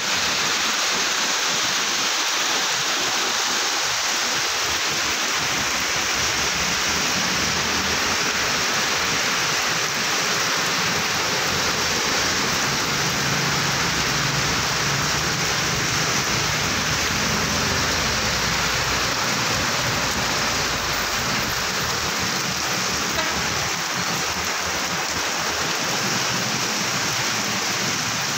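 Heavy rain pouring steadily onto the road. Under it, the tyre hiss and engine hum of cars and trucks driving through the water, the low rumble strongest in the middle.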